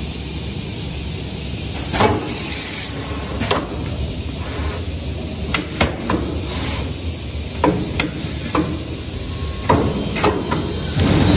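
EDDA Boxmaster 2500 CNC carton box machine running: a steady mechanical hum with irregular sharp clacks and knocks every second or two as it works the corrugated cardboard.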